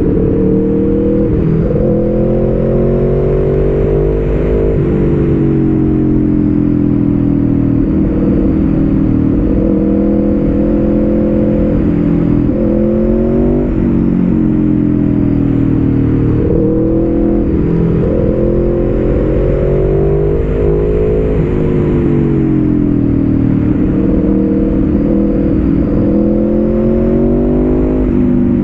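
Aprilia Tuono V4 1100 Factory's V4 engine running through a Graves slip-on exhaust, its revs climbing and dropping back several times as the bike accelerates and slows through the bends, over a steady rush of wind.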